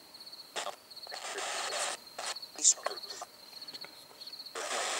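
A cricket chirping in short, repeated high trills, interrupted several times by bursts of hiss about a second long that are louder than the chirping.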